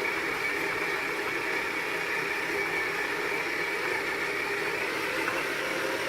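Kenwood Chef XL stand mixer's motor running steadily, a constant whir.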